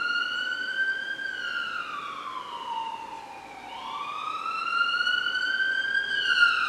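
Ambulance siren in a slow wail: the pitch climbs, sinks over a couple of seconds, climbs again and begins to fall near the end.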